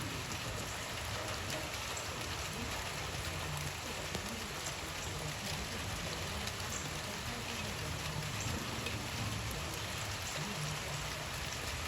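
Steady rain falling: an even hiss of drops that holds level throughout.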